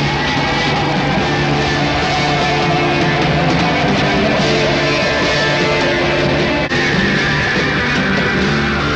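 Loud rock music, dense and continuous. A long held high note slides slowly downward, and after a split-second dropout about two-thirds through, another, higher note starts and also slides down.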